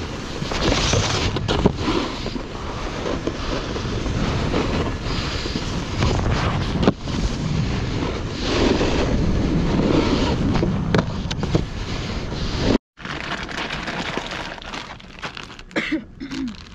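Wind buffeting the microphone over the rumble and scrape of a snowboard sliding on snow. The sound breaks off for a moment about thirteen seconds in and then carries on quieter.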